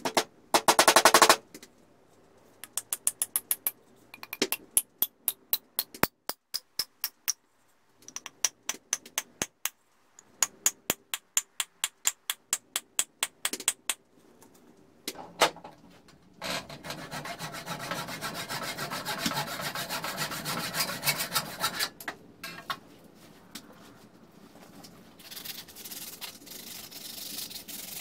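Runs of sharp, ringing steel-on-steel hammer blows, a few a second, driving a blacksmith's hammer head onto its new beech handle. Then comes a longer stretch of rough scraping on the wood, and a fainter one near the end.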